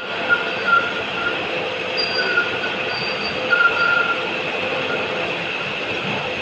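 Metal lathe running while a tool cuts a steel shaft: steady machining noise with short, high-pitched squeals coming and going every second or so.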